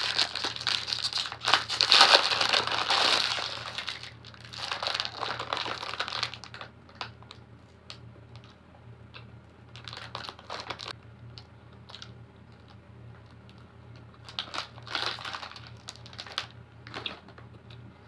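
Thin plastic bread wrapper crinkling loudly as it is torn open and peeled back, then quieter bursts of crinkling as the wrapped roll is handled, with soft chewing between them.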